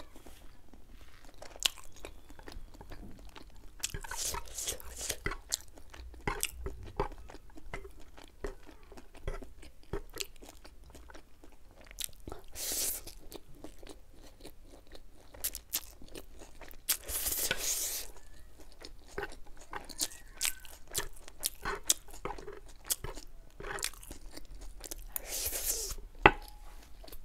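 Close-miked eating: chewing, biting and crunching into saucy chicken wings and chowmein, with many small mouth clicks and several short noisy bursts. A sharp click of a fork on the metal tray near the end is the loudest sound.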